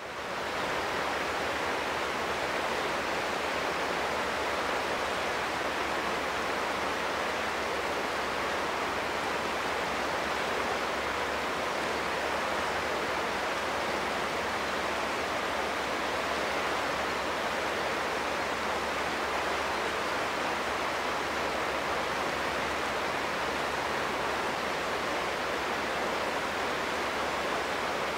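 Steady rushing of a fast-flowing river, an even noise with no engine tone in it.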